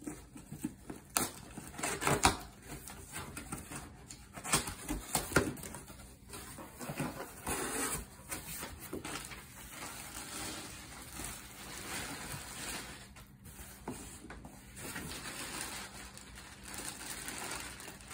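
A cardboard shipping box being opened and unpacked by hand: irregular knocks, scrapes and crackles as the flaps are pulled and folded back, and plastic packaging rustling as the contents are lifted out.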